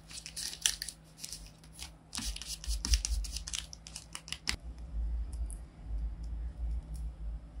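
Tape-covered paper craft pieces being pressed and handled by hand: crisp crinkling and rustling of the shiny taped paper in a quick run of sharp crackles, easing after about four and a half seconds into softer, duller handling noise.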